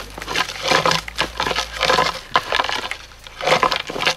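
Bull moose raking its antlers through brush and small trees: repeated bursts of cracking and snapping branches, roughly one a second.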